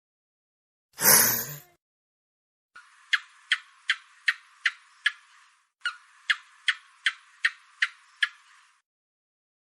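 Gecko chirping: two runs of sharp clicking chirps, about two and a half a second, six in the first run and seven in the second. A short hissing burst comes about a second in.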